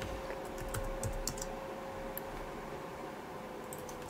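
Typing on a computer keyboard: scattered keystrokes in a couple of quick runs, over a faint steady hum.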